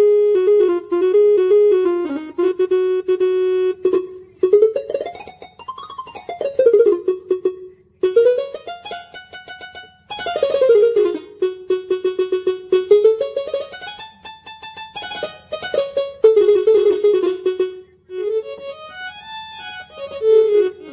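Casio CTK-2550 portable keyboard played one note at a time: a trill, then a series of rising and falling runs, in short phrases with brief breaks between them. The phrases demonstrate its built-in voices one after another, the voice changing from phrase to phrase.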